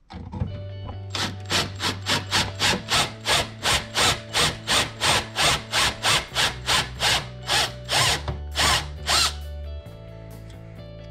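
Cordless drill boring a 3/16-inch hole through the flange of an aluminum radiator, run in short pulses about three a second for several seconds, then stopping a couple of seconds before the end.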